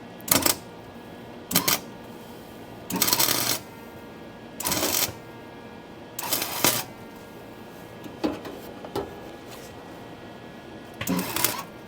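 Electric arc welding on sheet-metal rust repair, laid down as stitch welds: about eight short crackling bursts, each under a second, with brief pauses between them.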